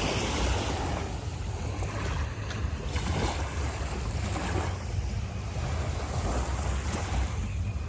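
Sea waves washing onto the shore in repeated swells every second or two, with wind buffeting the microphone as a low rumble.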